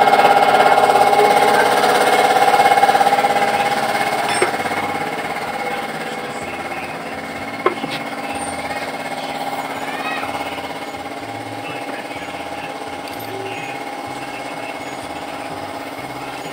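A small engine running steadily with a fast pulsing beat, louder for the first few seconds and then quieter. Two sharp clicks come about four and eight seconds in.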